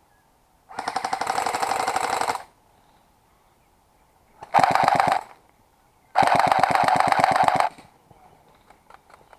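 Airsoft gun firing on full auto in three bursts, each a rapid rattle of shots; the middle burst is the shortest.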